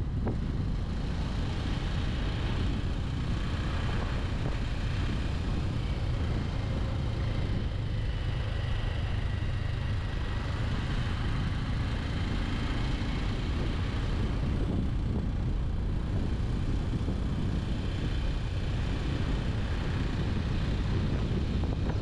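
Bajaj Avenger 160 Street motorcycle being ridden at a steady speed: its single-cylinder engine runs evenly under a low, continuous rumble, with wind noise on the microphone.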